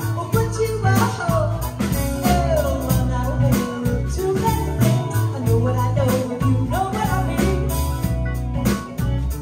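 Live band playing a song: a woman singing lead into a microphone over electric guitar, electric bass and a drum kit.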